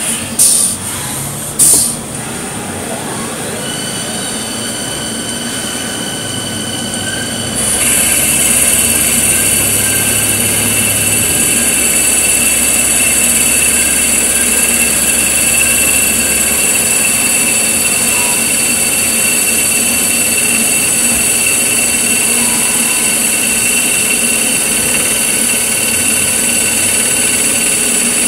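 Haas CNC lathe starting its cycle: two knocks near the start, then a steady high, multi-toned whine as the spindle runs up. About eight seconds in it gets louder and a strong hiss joins the whine as the tool cleans off the face of the steel bar before threading.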